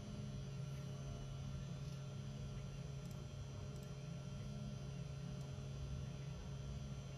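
CNC 3018 Pro desktop router running a roughing pass. The spindle gives a steady hum, and a higher motor tone rises and falls every couple of seconds as the machine works through the adaptive clearing toolpath.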